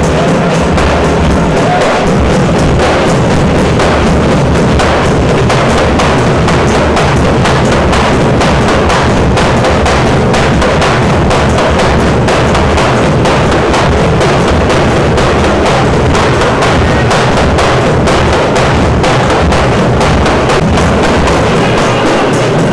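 Music with fast, steady drumming, kept loud and even without a break.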